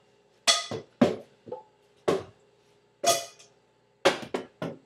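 A ball struck back and forth with frying pans: sharp metallic clanks with a short ring, about once a second, with lighter knocks between them.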